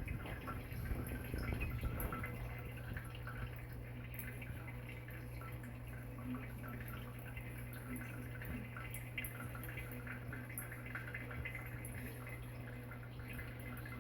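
A faucet running as a thin stream into a sink, with irregular dripping and small splashes, busiest in the first two seconds, over a steady low hum.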